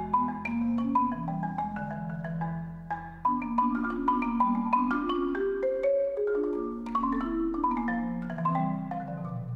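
Solo marimba playing a busy, syncopated run of struck notes, with low notes held under it by rolls.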